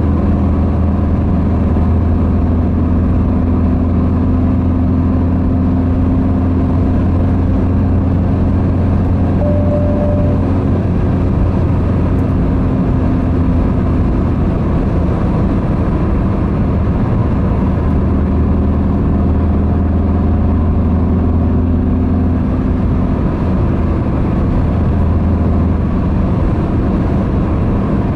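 Steady engine and road noise heard inside a car's cabin at motorway cruising speed: an even low drone with road rush over it.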